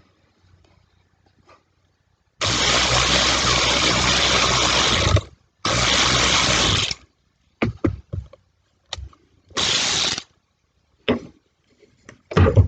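Skil 7.2-volt cordless power wrench running with a drill bit fitted, triggered in three bursts: a long one of about three seconds, then a shorter one and a brief one. Small clicks and knocks of handling come between the bursts.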